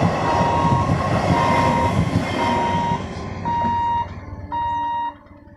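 A Medha EMU local train's coaches rumble over the level crossing and fade out about three seconds in, under a level-crossing warning alarm beeping at one steady pitch about once a second. Once the train has gone, the beeps are left on their own.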